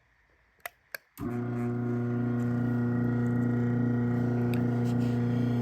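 Two sharp clicks, then the motor of a Craftsman 1/2 hp chain-drive garage door opener starts about a second in and runs with a steady hum as it drives the door closed.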